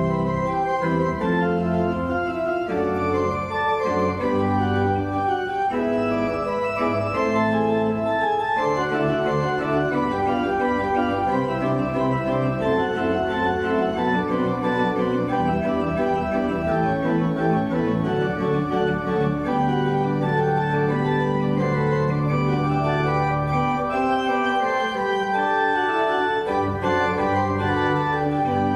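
Church pipe organ playing slow sustained chords over long held pedal bass notes.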